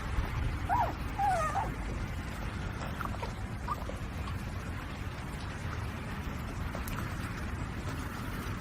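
A few short, high whimpers like a small dog's, bending up and down in pitch, with fainter ones about three seconds in, over a steady low rumble.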